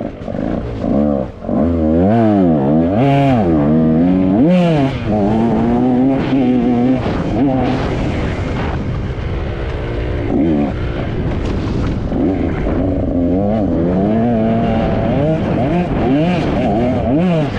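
Off-road dirt bike engine revving hard and dropping back over and over as the rider works the throttle and gears, settling into a steadier pull for a few seconds in the middle.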